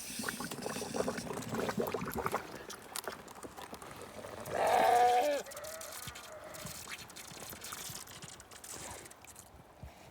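A dairy sheep bleats once, loudly, about halfway through: a single call just under a second long that drops in pitch at the end. Before it comes a couple of seconds of rapid clicking and scuffling noise.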